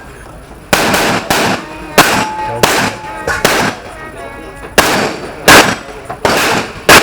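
A string of about nine gunshots fired at uneven intervals of half a second to a second and a half, each a sharp crack with a short ring after it: a competitor shooting a timed practical-shooting stage.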